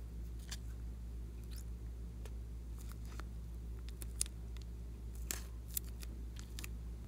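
Plastic piping bag crinkling and clicking as it is squeezed by hand and glossy slime is pressed out of it. The clicks are scattered, with a few sharper ones in the second half, over a steady low hum.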